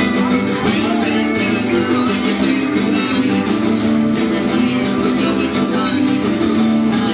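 A live band playing a song, led by strummed acoustic guitars.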